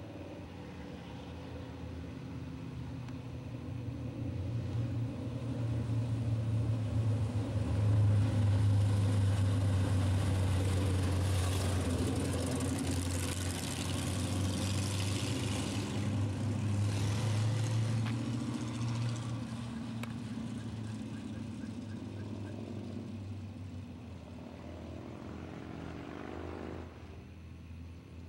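1967 Chevrolet Camaro's 396 big-block V8 driving by. The engine note builds to its loudest in the middle and fades as the car pulls away. Near the end it revs rising in pitch, then drops off.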